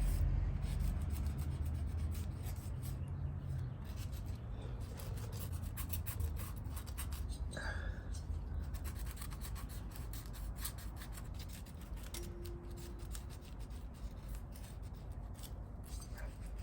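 Hand scrubbing and scraping of caked carbon off the top of a motorcycle cylinder bore, a run of irregular rubbing strokes, with a low hum underneath.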